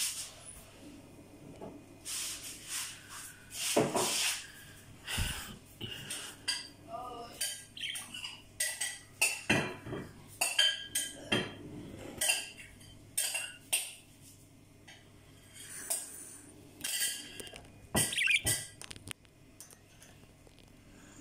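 Budgerigar preening close by: a run of small clicks and rustles from its beak and feathers, with a few soft chirps mixed in.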